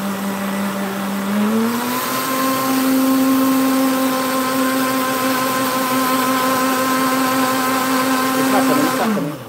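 Countertop blender running hard on a thick porridge mix, its motor pitch rising a little about two seconds in as it speeds up and then holding steady. Near the end it is switched off and the motor winds down to a stop.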